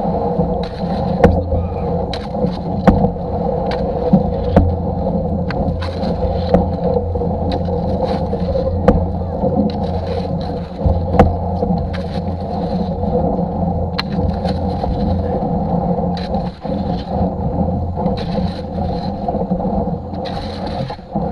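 Canoe paddling: sharp knocks of the paddle against the canoe every second or two, over a steady droning hum with held tones.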